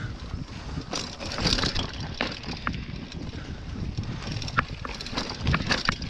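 Hardtail mountain bike clattering and rattling over rocks and roots on a rough descent, with sharp clicks and knocks throughout and a steady rumble of wind on the microphone. The clatter is loudest about a second and a half in and again near the end.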